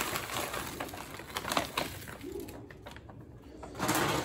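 Raw shell-on shrimp sliding out of a plastic bag into a plastic colander, with the bag crinkling. A few sharp clicks come about a second and a half in, then it goes quieter, with a short burst of rustling near the end.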